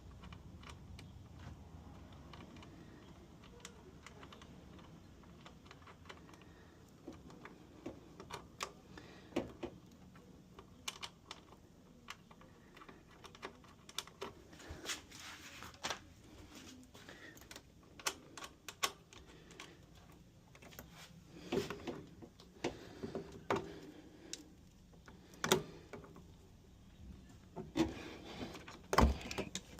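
Irregular light clicks and knocks of hand tools and washing-machine parts being handled. They are sparse at first and grow more frequent and louder in the second half.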